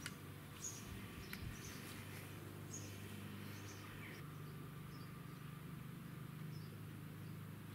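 Quiet farmyard ambience: a steady low hum under a few faint, short, high chirps and light clicks in the first few seconds.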